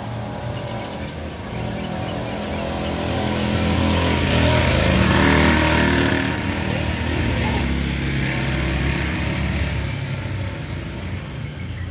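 A motor vehicle's engine running, growing louder to a peak around the middle and then fading a little, as a vehicle passing by.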